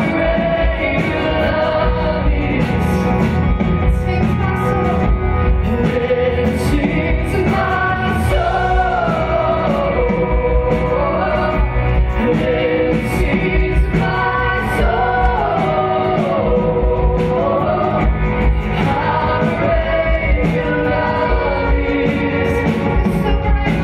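Live contemporary worship band: several vocalists singing a slow, gliding melody together over acoustic and electric guitars and keyboard, with a beat marked by regular cymbal strikes.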